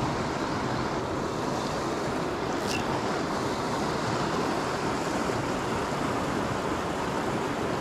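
Shallow creek water rushing over a rocky riffle, a steady even wash close to the microphone.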